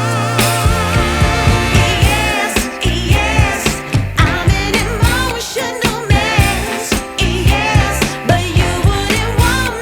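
Background music: a song with a sung melody over a steady drum beat.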